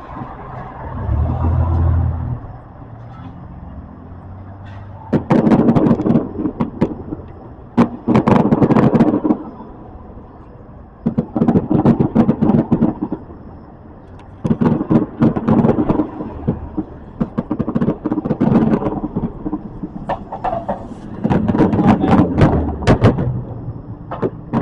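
Fireworks display: a low boom about a second in, then volleys of rapid bangs and crackling, each lasting a second or two and coming about every three seconds.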